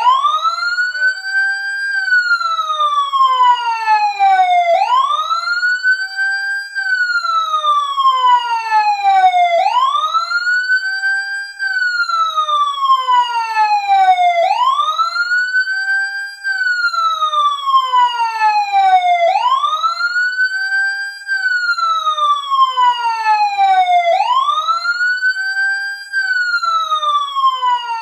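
Fire truck siren sounding in wail mode as a countdown timer's alarm. Each cycle rises quickly to a high pitch, holds briefly, then falls slowly, repeating about every five seconds.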